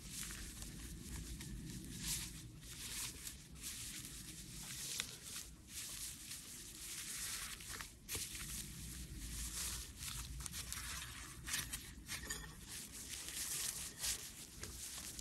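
Foam slime (floam) being squeezed and worked by hand, giving an irregular run of crisp crackling and crunching with sharper pops now and then.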